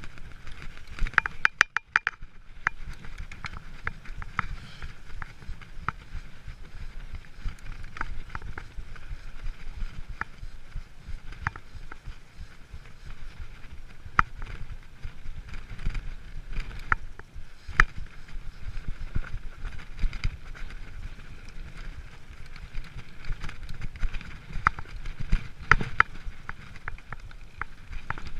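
Giant mountain bike ridden down a dirt forest trail. The tyres rumble steadily over the ground, with frequent sharp, irregular clicks and rattles from the bike as it goes over bumps.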